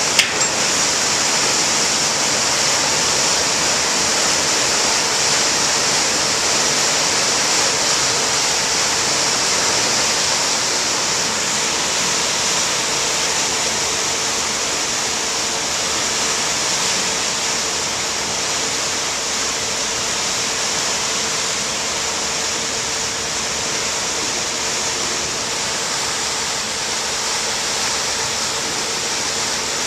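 Ferry propeller wash: a loud, steady rush of churning water as the M/V Chetzemoka's propellers drive it away from the dock, with a faint steady hum underneath. A couple of sharp clicks come right at the start.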